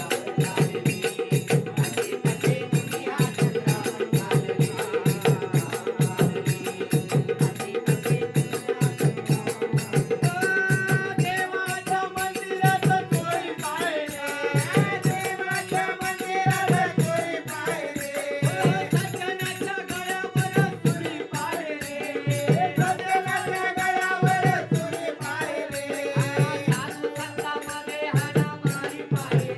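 Instrumental interlude of a Marathi bhajan: a hand drum keeps a steady rhythm with a jingling rattle over it. From about ten seconds in, a melodic instrument plays a tune that bends in pitch.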